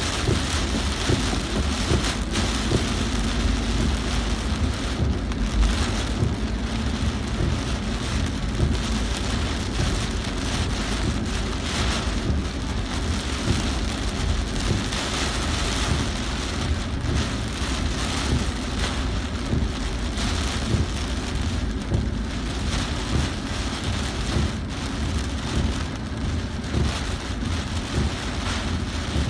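Heavy rain pelting a car's windshield and body, heard from inside the car: a steady, dense patter that keeps up throughout.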